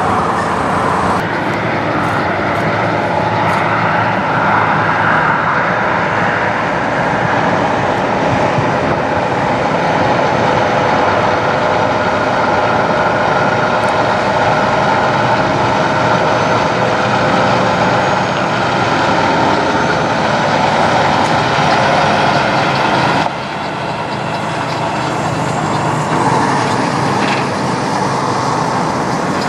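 Semi tractor-trailers' diesel engines running as the rigs pull slowly past, a loud, steady engine and rolling noise. The sound changes abruptly about a second in and again about 23 seconds in, where one truck gives way to the next.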